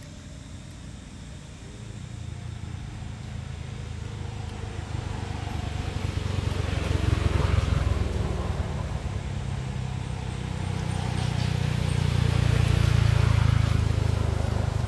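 Low engine rumble of a motor vehicle passing nearby. It grows louder to a peak about halfway through, eases off, then swells again near the end.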